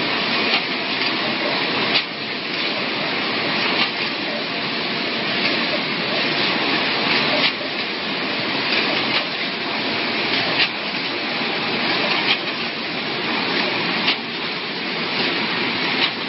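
Cement bag double-head sewing machine running steadily, with a sharp click every couple of seconds as it works through the bags.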